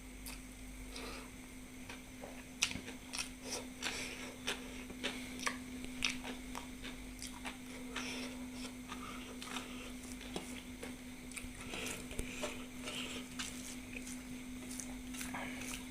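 Close-miked eating sounds: a person chewing food, with irregular wet mouth clicks and smacks, over a steady low hum.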